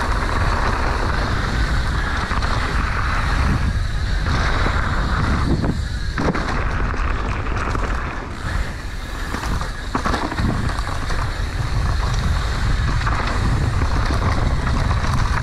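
Wind buffeting the camera microphone on a fast mountain bike descent down a dirt trail, with tyre and frame noise and a few sharp knocks as the bike hits bumps.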